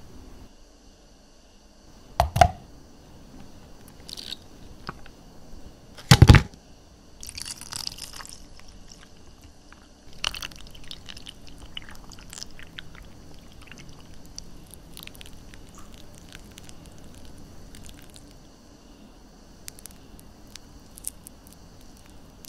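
Close-miked food-preparation handling sounds: two sharp knocks about four seconds apart, the second the loudest, then a short crackly rustle and scattered small clicks and taps.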